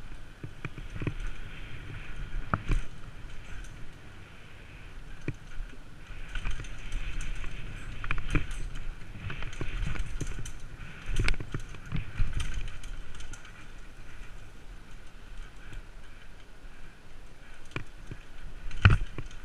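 Downhill mountain bike running over rough dirt: tyre noise and a steady rattle from the bike, broken by frequent sharp knocks as it hits bumps, the loudest near the end.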